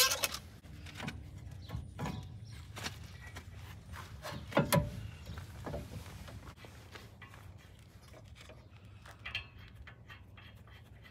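Metal clinks and knocks of hand tools and brake parts during a brake pad change at a pickup's front wheel hub. The loudest come at the very start and about four and a half seconds in, with scattered lighter ticks, over a low steady rumble.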